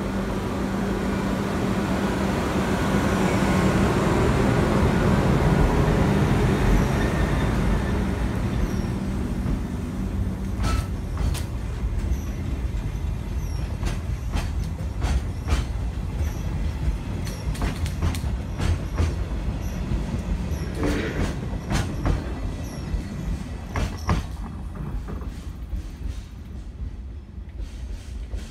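ED75 AC electric locomotive hauling Chiki 6000 flatcars past and away. A rumble with a steady hum is loudest in the first several seconds. Then the wagons' wheels click over the rail joints, fading as the train goes off.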